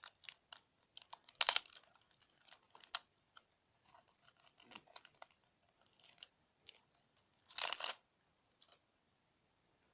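Trading cards and booster-pack foil being handled: scattered small clicks and rustles, with two louder crinkling rustles, about a second and a half in and again near eight seconds.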